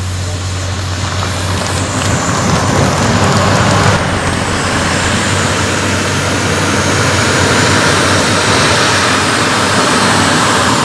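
Small gas-turbine engine of a radio-controlled BD-5J model jet running on the ground: a steady rush of jet noise with a thin high whine that drifts slightly in pitch, getting louder about two seconds in.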